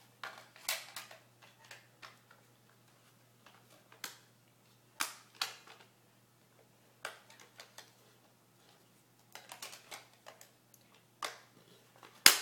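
Irregular sharp clicks and light plastic knocks, a dozen or so, of small objects handled close to the microphone, the loudest a sharp click near the end. They are the sounds of batteries being fitted into a plastic radio-control transmitter.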